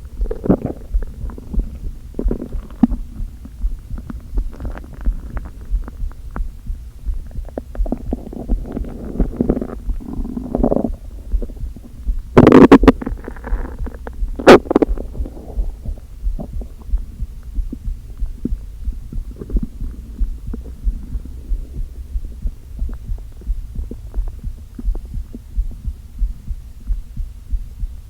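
Empty stomach rumbling and gurgling from hunger, over a steady low rhythmic thumping a little faster than once a second. The gurgles come in swells during the first half, with two loud sharp noises around the middle, then settle so that mostly the low rhythmic thumping remains.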